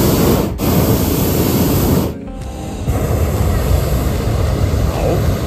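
Hot-air balloon propane burner firing: a loud, steady rushing noise. It dips briefly about half a second in and drops more clearly at about two seconds, then the rushing carries on.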